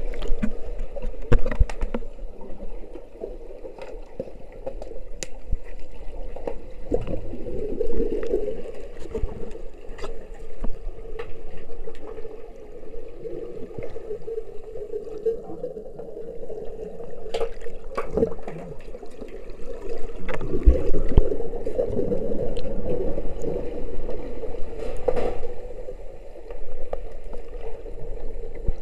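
Underwater swimming-pool sound heard through a submerged action camera: a muffled, continuous rushing of water with a steady hum. Scattered sharp clicks and knocks come through it, several in the second half.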